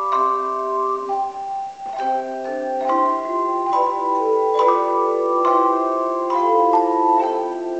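Tone chimes played as music: struck notes start about once a second and ring on, overlapping into sustained chords, with a short lull a little under two seconds in.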